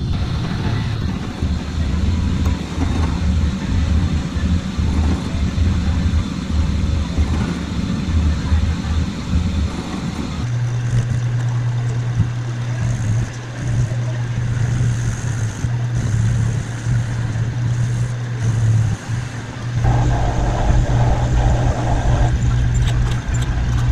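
Drill press running with a bit drilling into a steel pin. About ten seconds in, it gives way to a metal lathe running with a steady hum while a tailstock drill bores into a spinning steel part.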